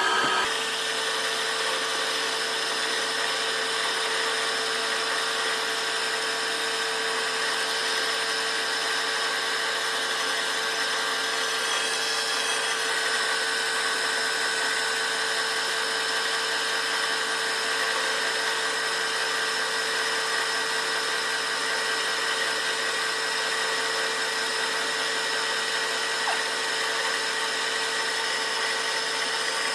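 Metal lathe running steadily, a constant machine whine over a hiss, as it machines a built-up bearing seat on a steel roller.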